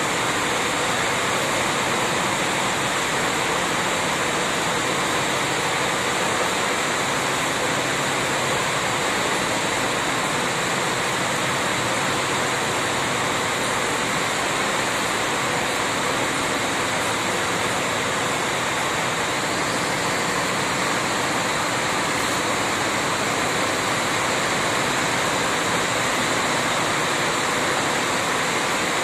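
A steady, unbroken rushing noise at a constant level, with no distinct events in it.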